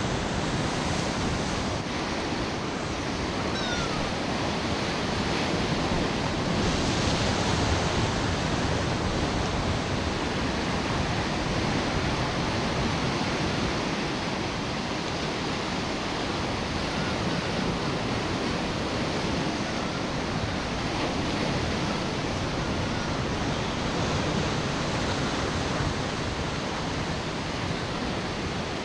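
Steady rush of sea surf washing against the shore, with a few faint short squeaks about four seconds in.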